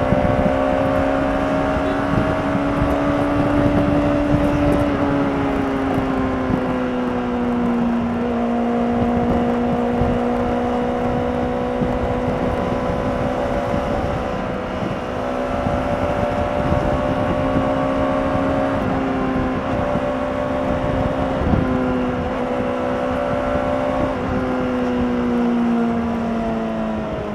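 Honda CBR600RR's inline-four engine through its stock exhaust, pulling along at a fairly steady engine speed. The pitch eases down once early on and then rises and falls slightly a few times with the throttle, over steady wind and road rush.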